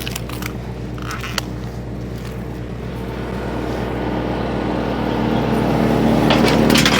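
Tractor engine running a PTO-driven Woodmaxx WM8H wood chipper, a steady drone with a few light clicks about a second in, swelling louder and rougher over the last few seconds.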